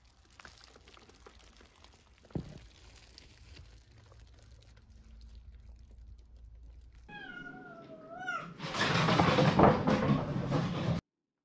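Soft rustling of a cardboard box being handled, with one sharp knock about two seconds in. A newborn kitten then mews once, a wavering cry about a second and a half long. It is followed by a louder rushing noise for about two seconds that cuts off abruptly.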